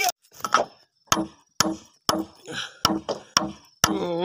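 Machete blade chopping into a green bamboo pole: sharp strikes about two a second, each with a short ring from the hollow stem.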